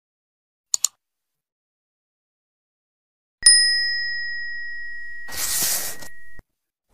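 Subscribe-button sound effects: a quick double mouse click, then a single bright notification bell ding that rings out and fades over about three seconds, with a short whoosh near the end.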